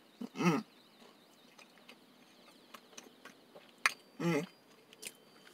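A man chewing a sandwich with his mouth closed, giving two short hummed "mm" sounds of enjoyment, about half a second in and again about four seconds in, with faint mouth clicks in between.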